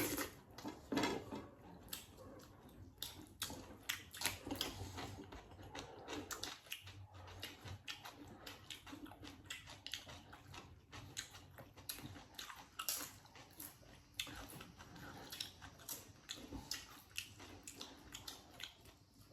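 People chewing and biting food close to the microphone, a steady irregular run of quick clicks and smacks.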